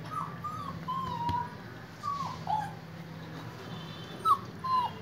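German Shepherd whimpering: about seven short, high whines, several falling in pitch, the loudest about four seconds in.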